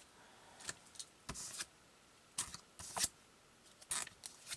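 Sleeved trading cards being handled on a cloth playmat: several short, separate rustles and scrapes as cards are picked up and slid.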